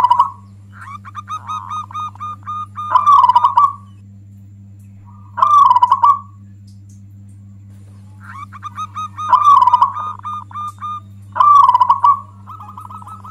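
Zebra dove cooing: stretches of quick staccato coo notes broken by four loud rolling coo phrases, about three, five and a half, nine and a half and eleven and a half seconds in. A steady low hum runs underneath.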